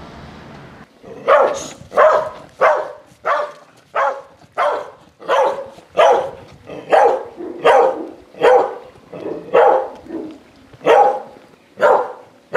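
Dog barking aggressively: a steady run of sharp barks, a little faster than one a second, starting about a second in.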